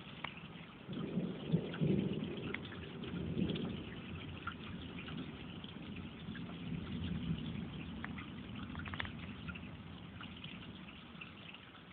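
Thunder rumbling, swelling about a second in and slowly dying away, with scattered raindrops ticking close by.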